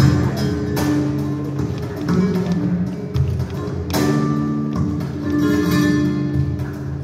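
Flamenco music led by acoustic guitar, with sharp strummed chords near the start, about a second in and again around four seconds, between held notes.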